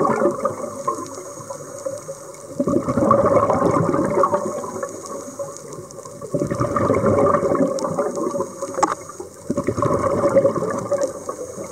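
Scuba regulator exhaust bubbles from a diver breathing, heard underwater: a bubbling gush about every three to four seconds with quieter pauses between breaths.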